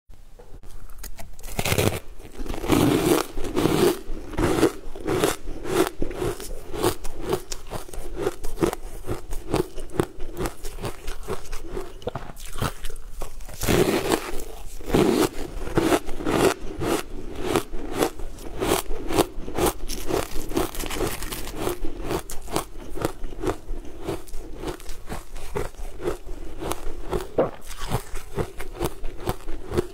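Close-up crunching and chewing of frozen sweet-ice chunks coated in green powder: a dense, continuous run of sharp crunches as bite after bite breaks the ice, starting about a second and a half in.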